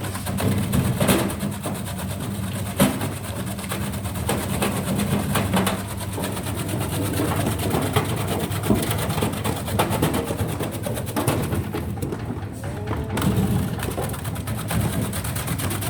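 Porang slicing machine running: a steady motor drone with scattered sharp clicks.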